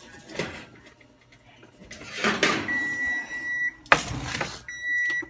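An electric oven's timer beeping: two long, steady, high electronic beeps, the first about a second long and the second shorter. Around them are metal clatter and a sharp clank of a baking pan being handled.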